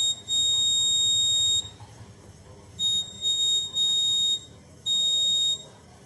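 Buzzer of a homemade laser security alarm sounding a steady high-pitched beep that switches on and off at uneven intervals: one long beep, then four shorter ones. The alarm sounds each time the laser beam is interrupted and stops when it is restored.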